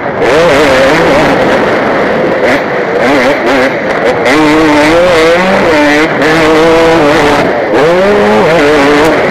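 KTM 250 motocross bike engine being raced hard, its pitch repeatedly rising and falling with throttle and gear changes, heard from a helmet camera over heavy rushing noise.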